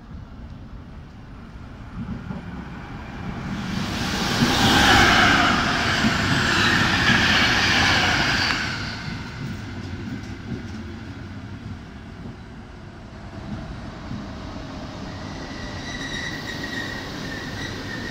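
Czech Railways passenger train with a class 162 electric locomotive at the rear running past along the platform track. Its rushing noise swells to its loudest about four to nine seconds in as the coaches go by. A high whining tone comes in near the end as the locomotive passes.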